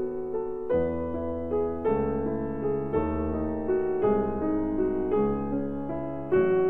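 Background piano music, with a new note or chord struck about once a second.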